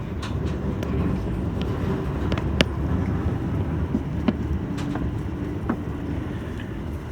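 Toei Shinjuku Line subway train running, heard from inside the car: a steady low rumble of wheels on rail with a faint hum, and a few sharp clicks as the wheels cross rail joints.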